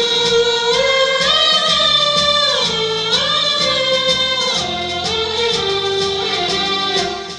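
A choir singing a long, gliding melody with held notes, over instrumental accompaniment with a light, steady beat.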